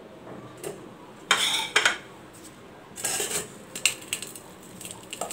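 Metal potato masher mashing boiled potatoes in a stainless steel bowl, clinking and scraping against the bowl in a few separate bursts.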